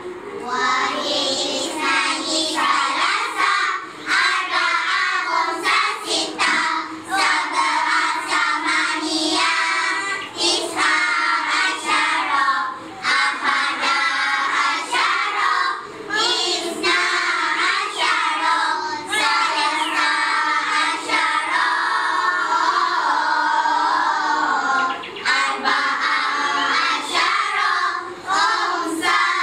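A class of young children singing a song together in chorus, with short breaks between lines.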